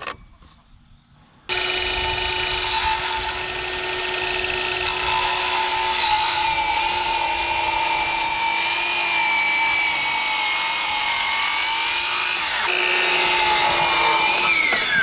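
Electric power tool running under load on timber: a steady motor whine with the noise of working wood starts suddenly and runs about thirteen seconds, dips briefly near the end, then winds down in pitch and stops.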